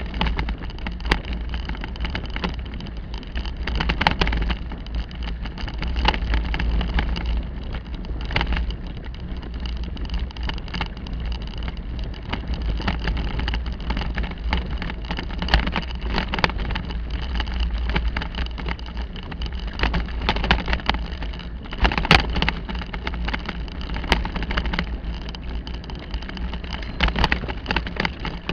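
Bicycle riding over a bumpy dirt forest track: a steady low rumble of wind buffeting the bike-mounted microphone, with frequent short rattles and knocks from the bike jolting over ruts.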